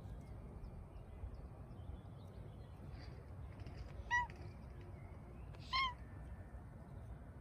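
Bengal cat giving two short, high meows, about a second and a half apart, the second a little longer than the first.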